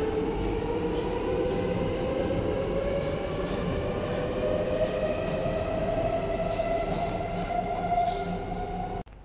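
MRT train pulling out of the station, its electric traction motors whining in a slowly rising pitch over a steady rumble. The sound cuts off suddenly near the end.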